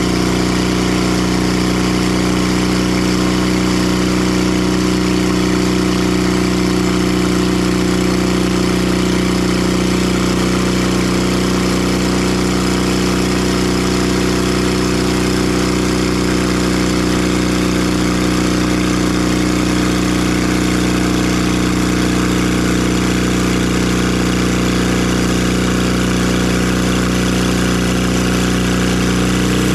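Timber Harvester bandsaw mill's engine running at a steady, unchanging speed.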